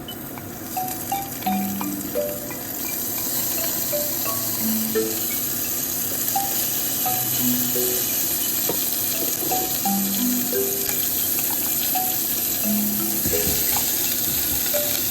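Food sizzling as it fries in a pan, a steady hiss that sets in about three seconds in, with a few light clicks of stirring. Background music with a simple melody plays throughout.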